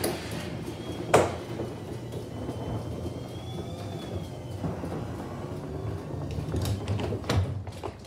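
Chamberlain garage door opener raising an old, rusty sectional garage door: a steady rumbling run with a sharp clunk about a second in, a faint whine rising and falling midway, and more clunks near the end before it stops.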